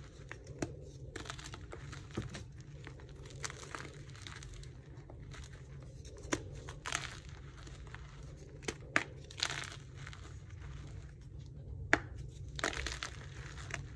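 Hands crushing and crumbling blocks of blue-dyed gym chalk: dry crunching and crumbling with sharp snaps as pieces break off. The loudest is a crack about twelve seconds in as a block is snapped in two.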